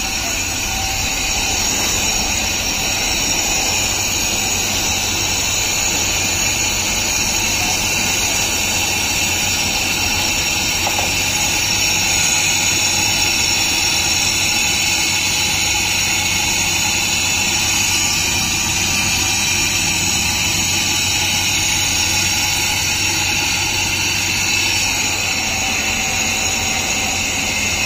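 Electric kharra (mava) mixing machine running steadily, its motor spinning the rotor in the drum as it churns a batch of areca nut and tobacco mix. It makes an even, unbroken whir with a low hum beneath.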